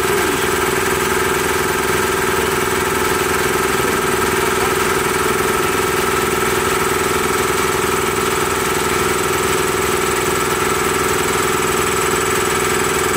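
Remeza two-cylinder, belt-driven piston air compressor running steadily under load, pumping up its 50-litre receiver as the tank pressure climbs toward the 8–9 bar cut-off. A steady hum with one strong mid-pitched tone.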